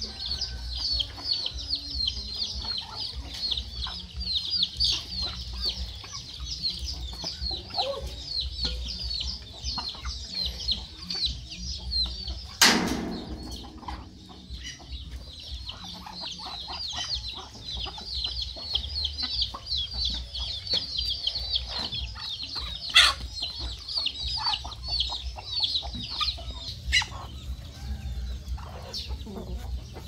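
Chicks peeping without pause in quick, high-pitched, falling chirps, with hens clucking now and then among a farmyard flock of chickens and Muscovy ducks. One loud short squawk comes a little before halfway.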